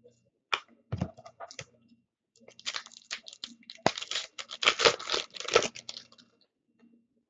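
A Panini Contenders hockey card pack's wrapper being torn open and crinkled by hand. A few scattered clicks and rustles come first, then a dense crackling stretch of about three and a half seconds in the middle.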